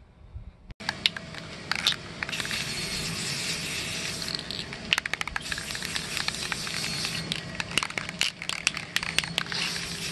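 Aerosol can of gloss spray paint spraying: a steady hiss that starts about a second in, with scattered clicks through it.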